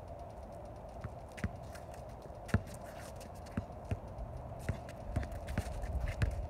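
Basketball bouncing on an asphalt driveway as a player dribbles, with sneaker steps. The bounces come irregularly, the loudest about two and a half seconds in, and quicken near the end.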